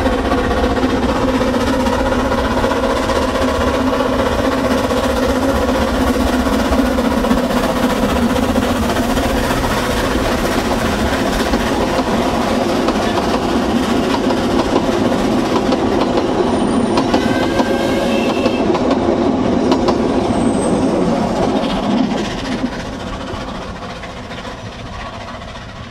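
Ffestiniog Railway narrow-gauge steam train running past: locomotive exhaust and the rumble and clatter of coach wheels on the rails, with a few brief high wheel squeals about two-thirds of the way through. The sound fades over the last few seconds as the last coach goes by.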